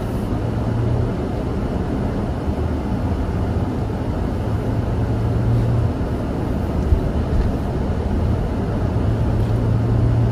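Car heater blower running at full speed to defrost an iced-over windshield, a steady rushing noise that makes the cabin a bit noisy, over a low steady hum of the car on the road.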